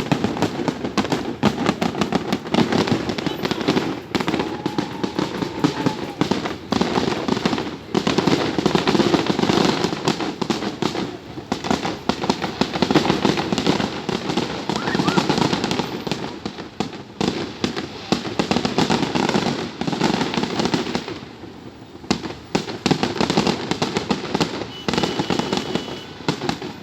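Aerial fireworks display: a dense, continuous barrage of bangs and crackling, easing off briefly about three-quarters of the way through before picking up again.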